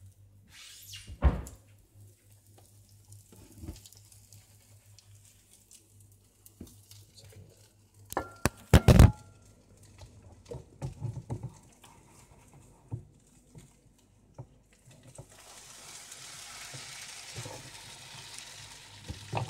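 Kitchen knocks and clatters of cookware and utensils, the loudest a cluster of sharp hits with a brief ringing clink about halfway through. From about three quarters of the way in, a steady sizzle of egg frying in a hot oiled pan.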